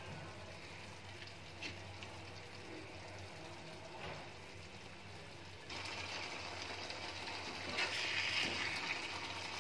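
Stuffed brinjal curry simmering in a steel pot with a steady liquid bubbling. The sound gets louder a little past halfway, and near the end a metal spoon stirs and sloshes through the gravy.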